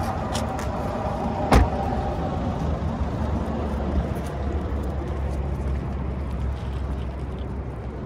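Steady low rumble of road traffic from a nearby highway, with one sharp knock about one and a half seconds in.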